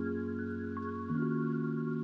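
Background music: soft held chords that change about a second in, with higher single notes played over them.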